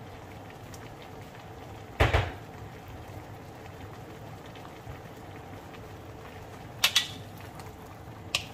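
A wok of shrimp, squash and eggplant simmering in broth, bubbling steadily and softly. A loud knock comes about two seconds in; near the end, two quick knocks and another follow as a wooden spatula starts stirring against the wok.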